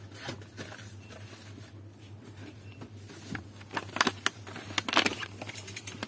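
Clear plastic blister packaging of a pastry syringe crackling in a gloved hand as the card is handled and turned over, with a cluster of sharper crackles about four seconds in and again about five seconds in, over a steady low hum.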